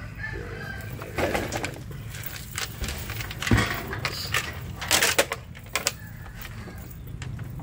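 Cast net and woven plastic sack rustling as fish are picked out onto the boat floor, with scattered knocks and one loud thump about three and a half seconds in. A bird calls in the background.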